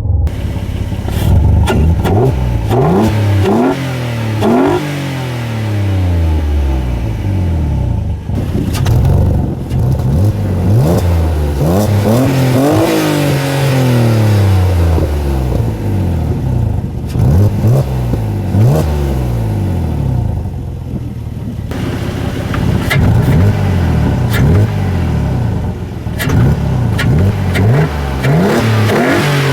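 Renault Clio V6's mid-mounted V6 engine revving again and again, its pitch climbing quickly and then falling away over a few seconds each time.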